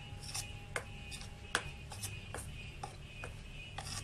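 Metal spoon clinking and scraping against a stainless steel bowl while stirring dry gram flour and cornflour together, a sharp click about twice a second at an uneven pace.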